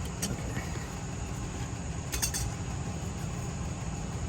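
Light metallic clinks of a tool against the oil filter as it is worked loose: one click just after the start and a quick cluster about two seconds in, over a steady low rumble.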